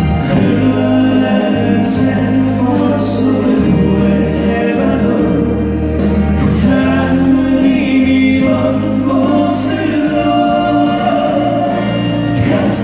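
Live song: singing over a loud band backing, with long held notes and a steady bass.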